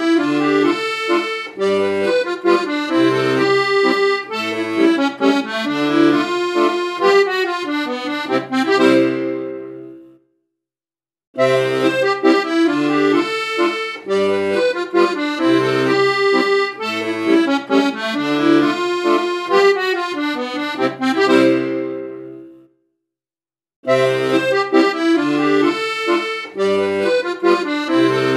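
Instrumental background music, a melodic tune with changing notes, that fades out and stops twice, about a third of the way in and again near the three-quarter mark, each time for about a second of silence before starting again.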